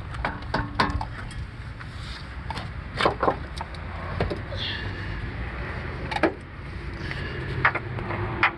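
A car running with a steady low hum, broken by scattered sharp clicks and knocks, the loudest about three seconds in.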